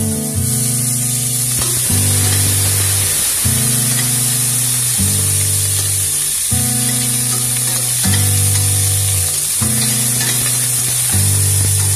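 Sliced onions sizzling in hot oil in a stainless steel pan, under background music whose low notes change about every second and a half.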